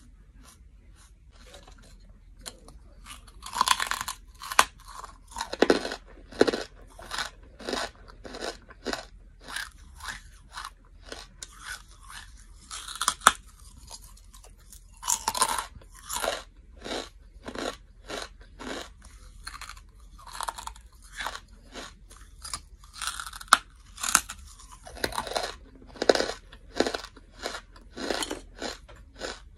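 Close-miked biting and chewing of chunks of compressed charcoal. A few seconds in, loud crunches as pieces are bitten off give way to fast, regular crunchy chewing, about two chews a second, with fresh loud bites now and then.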